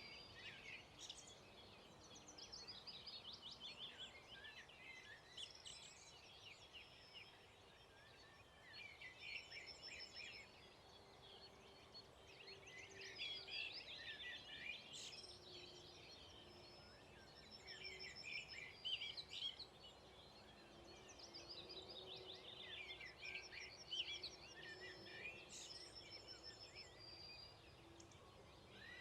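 Several songbirds singing in a dawn chorus, phrases repeating and overlapping throughout, some as rapid trills. A faint low hum lies underneath.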